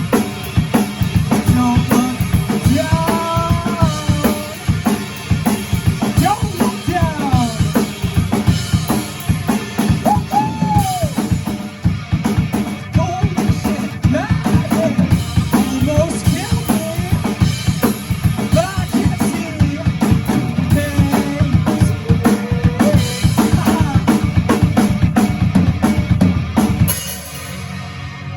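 Rock band playing a song, led by a full drum kit keeping a steady beat of kick, snare and rimshots, with bending melodic lines over it. The music stops abruptly near the end.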